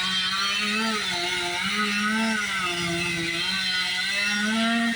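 Chainsaw engine running under load, its pitch dipping and rising repeatedly as it cuts into the tree.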